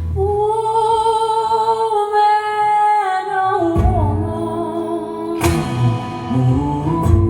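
Live song: a female singer holds one long note, then the accompaniment comes back in low about halfway through, with sharp strummed hits about two thirds of the way in and near the end.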